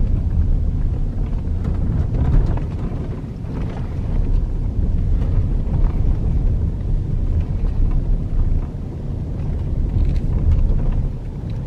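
Steady low rumble of a car driving, heard from inside the car, with wind buffeting the microphone.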